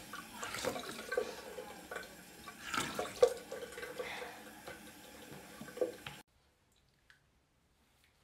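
Bathroom tap running into a sink, with splashing as water is scooped onto the face during face washing. The sound cuts off suddenly about six seconds in.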